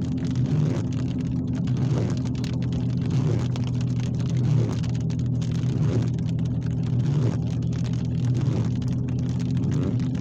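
Heavy thunderstorm rain falling steadily, pattering with many small drop hits, over a constant low hum. A softer sound repeats about every second and a half.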